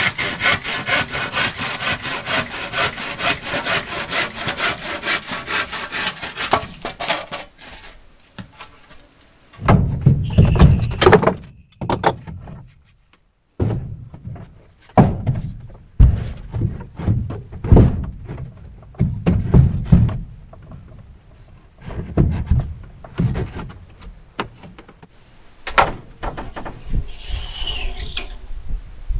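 Wood being worked with hand tools: a fast, even run of rasping strokes, like sawing, for about seven seconds, then irregular heavy knocks and chops on wood.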